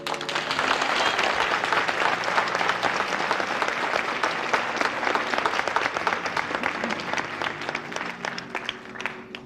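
Audience applauding. It swells at once, then thins out and stops just before the end, over soft sustained background music.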